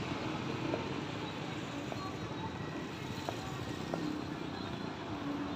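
Steady noise of road traffic going by, with a few faint pops from distant fireworks scattered through it.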